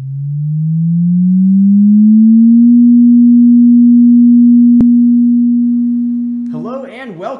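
A pure electronic sine tone rises in pitch over about two seconds, holds one steady low note, and fades out near the end. A single sharp click comes a little past the middle.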